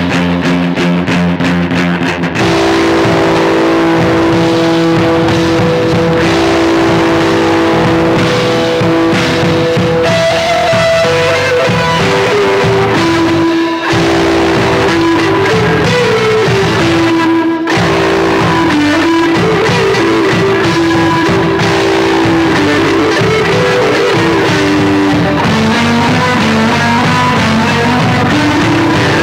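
A music loop played through a Teinte Stereo Eurorack colouring module set to Broken mode with Bright contour, giving a dense, steady sound with a wandering melody line. There are two brief dips, about 14 and 17.5 seconds in.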